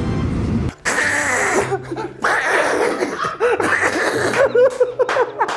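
A low rumble cuts off abruptly under a second in. Then comes loud laughter in breathy bursts.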